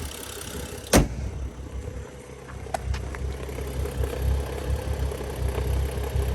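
BMW N55 straight-six idling in neutral, heard from under the car beside the transmission. It carries a little rattling from the single-mass lightweight flywheel, almost like a loose bolt on the bell housing. A single sharp knock comes about a second in.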